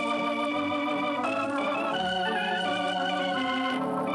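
Organ music, held chords that change every second or so, in the style of a 1940s radio programme theme.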